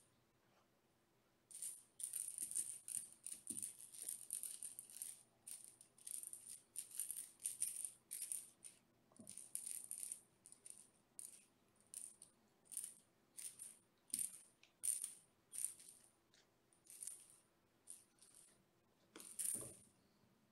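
A small cat toy rattling as it is shaken and jiggled by hand in quick, irregular bursts, starting about a second and a half in, with short pauses between the bursts.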